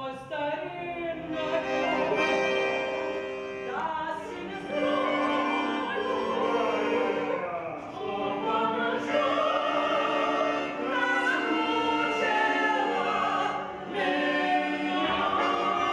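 A soprano sings a Russian song in an operatic voice with wide vibrato, a man's voice joining in, over button accordion accompaniment. Near the end she holds a long high note.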